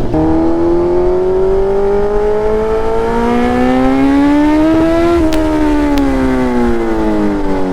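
Kawasaki Z900's inline-four engine under way, its pitch rising smoothly for about five seconds as it accelerates, then falling off as the throttle is closed.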